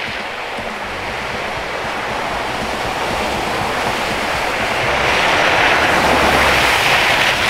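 A four-wheel drive approaching and driving through a puddle on a dirt track: engine rumble and the rushing splash of tyres through water, growing steadily louder and loudest from about five seconds in.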